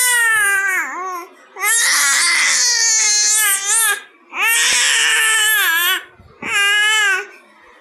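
A baby crying in loud, high wails, each one or two seconds long, with short breaths between them; the last wail ends about a second before the end.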